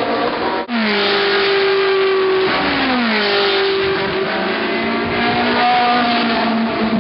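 Ferrari 458 Challenge race car V8 engines running hard at high revs, with a brief break in the sound just under a second in. The engine note slides down in pitch about two and a half seconds in, then climbs again as a car accelerates.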